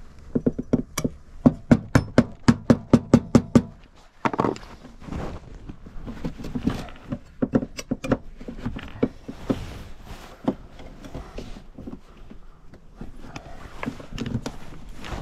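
A rubber mallet tapping a flat scraper to knock a UPVC glazing bead free of the window frame. The loudest part is a quick run of about a dozen sharp taps, roughly four a second. Irregular knocks and plastic scraping follow as the bead is worked loose.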